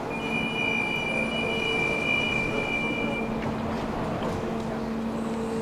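Tram wheels squealing against the rails in a steady, high-pitched tone for about three seconds, then cutting off. A thinner, higher whine starts near the end, over a steady street rumble.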